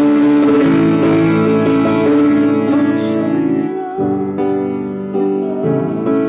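A man singing over piano accompaniment: held, wavering vocal notes over sustained chords, with the chord changing about four seconds in.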